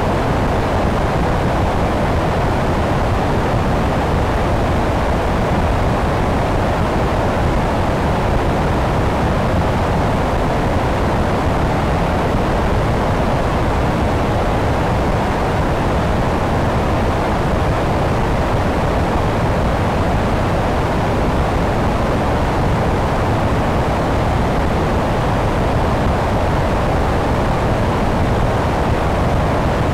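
Steady rush of airflow over a camera mounted on the wing of an electric Sonex Xenos in cruise flight. There is no distinct engine or motor note, only an even, deep rushing that never changes.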